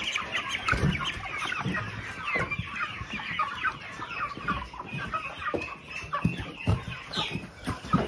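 A crowded flock of chickens, largely white meat birds, clucking and chirping in many overlapping short calls, with occasional thumps.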